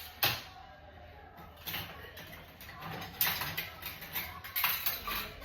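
Dishes and a dishwasher rack being handled: a series of sharp clinks and knocks, in several short clusters, as dirty dishes are loaded into a dishwasher.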